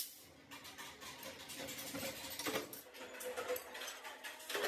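Small sheet-metal pieces clinking and tapping against the steel die of a punch press as they are handled, with a brief metallic ring after some taps and a sharper clack near the end.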